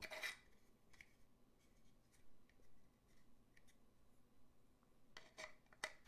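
Faint clicks and scrapes of a small painted puzzle box and its loose piece being handled and pushed against each other, with a quicker cluster of clicks near the end.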